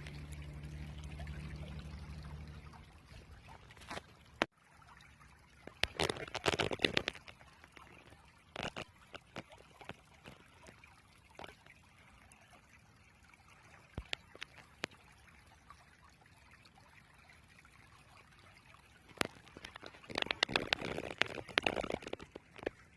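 Creek water sloshing and splashing in irregular bursts, as from wading boots moving through a shallow stream, with a faint trickle between. A low steady hum for the first few seconds, then stops.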